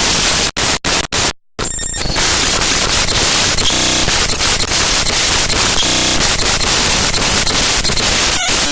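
Raw digital data played back as audio: a loud, harsh wall of static-like noise. It cuts out in a few short dropouts and one brief silence within the first two seconds, and turns into short stretches of patterned, buzzy noise about four and six seconds in.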